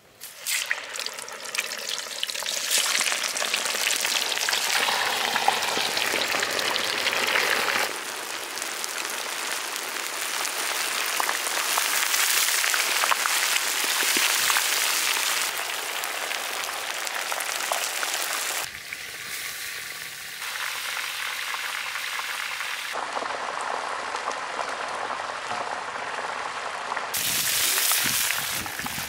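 Masala- and cornflour-coated Spanish mackerel pieces deep-frying in hot oil in a large kadai: a dense, steady sizzle. The sizzle changes abruptly in level several times.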